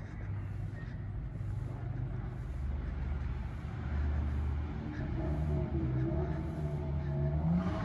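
Town street ambience: a steady low rumble of motor-vehicle traffic. In the second half a pitched hum joins in and rises in pitch near the end.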